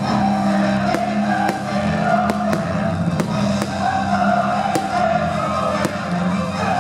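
Orchestral-style music with a steady bed of sustained tones, punctuated by a dozen or so sharp firework bangs, irregularly spaced about every half second.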